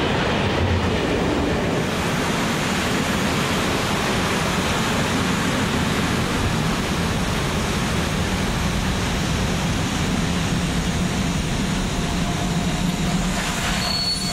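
Freight train of swap-body and container wagons rolling past close by at speed: a steady, loud noise of wheels on rail. Later an ÖBB class 1042 electric locomotive heads a freight train around a curve, and a short high-pitched tone rings out near the end.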